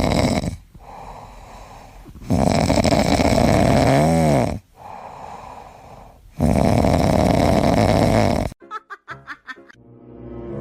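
Loud snoring: three long snores about four seconds apart, with quieter breaths between them. Near the end, a short run of rapid clicks and a falling tone take over.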